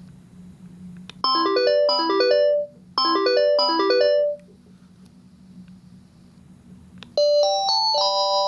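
Panasonic KX-TGD62xE cordless phone playing an electronic ringtone: two rings, each made of two quick rising runs of notes, about 1.7 s apart, then a pause. Near the end a slower melody of held electronic notes starts.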